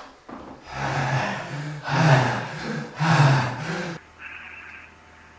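A person breathing heavily and noisily: three long, loud breaths with a voiced groan in them, then fainter, thinner breaths after about four seconds.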